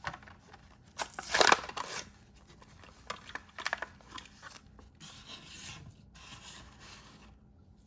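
Hot Wheels blister-card packaging being torn open: cardboard tearing and plastic crackling, loudest about a second in, followed by clicks and lighter rustling.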